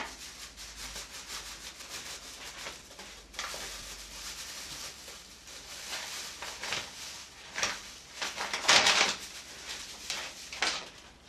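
Rustling and scraping in irregular strokes as wholemeal flour is added to a bowl of sticky sourdough cookie dough, loudest about nine seconds in.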